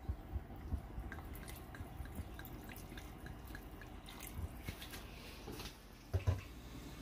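A pot of pork and onion broth boiling quietly, with a steady run of small drip-like pops, then dark sauce poured from a bottle splashing into it. Near the end a glass pot lid is set down on the pot with a short knock, the loudest sound.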